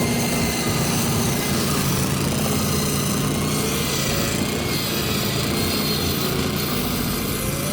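Engine-driven circular sawmill running steadily: a constant engine hum with a high, even hiss and whine from the spinning saw.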